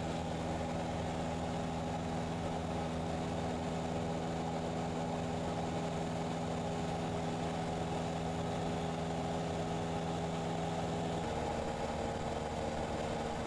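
Cessna 172's piston engine and propeller droning steadily, heard inside the cabin in cruise flight. About eleven seconds in, the pitch of the hum shifts slightly.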